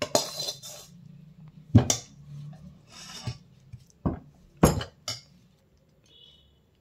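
Steel spoon scraping and knocking against a stainless steel plate as a thick coconut barfi mixture is pressed flat, with about five sharp metallic clinks among the scraping.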